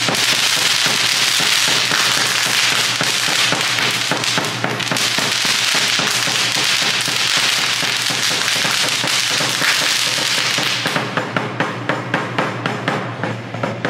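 Pyrotechnic spark fountains hissing and crackling in a loud, continuous spray that dies away about eleven seconds in. A steady run of drum beats, about three a second, then takes over.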